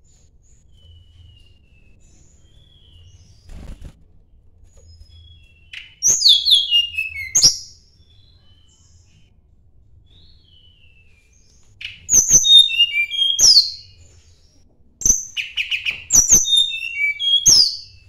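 Tledekan gunung songbird singing: faint scattered chirps, then three loud bursts of quick high whistled notes, each sliding downward, starting about 6, 12 and 15 seconds in.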